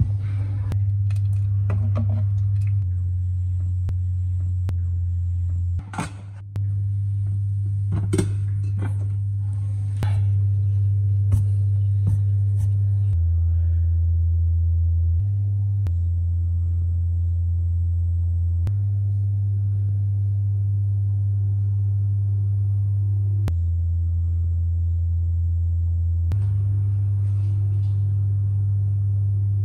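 Background music of low, held bass notes that change pitch every few seconds, with a few sharp clicks and knocks in the first dozen seconds.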